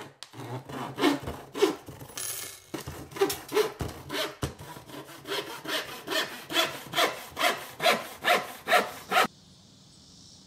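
Rhythmic rasping strokes, about two a second and quickening, that stop abruptly near the end. A faint steady high hiss follows.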